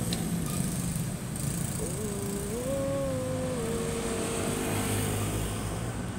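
Street traffic: a motorcycle engine passing close at the start, over a steady low rumble of cars on the road. From about two seconds in, a single long tone rises in pitch, then drops a step, and fades out after about three seconds.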